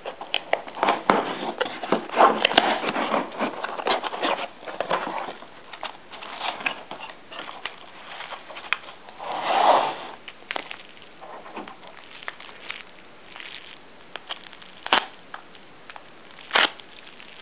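A cardboard mailing box being pulled open and crumpled newspaper packing rustled and crinkled, with a louder rustle about ten seconds in. Toward the end, a bubble-wrapped item is handled and the wrap is cut with a knife, giving a few sharp crackles and clicks.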